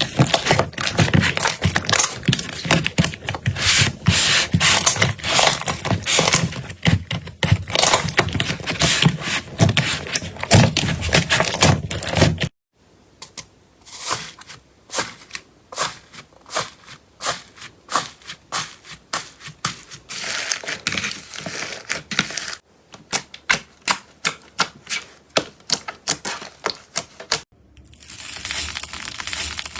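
Slime being squeezed and pressed by hand, making a dense run of crackling clicks and pops. After sudden cuts at about 12, 22 and 27 seconds in, the clicks come sparser and more separate, and near the end they turn to a softer crackle.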